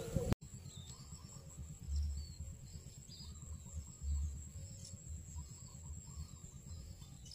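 Insects chirring: a steady high whine with faint chirps repeating over it, broken by low, dull thumps about two and four seconds in.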